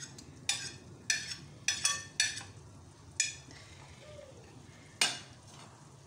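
Utensil clinking against a plate as mint and other ingredients are scraped off it into a frying pan: several sharp clinks through the first half, one more near the end. A faint sizzle of the masala frying in the pan underneath.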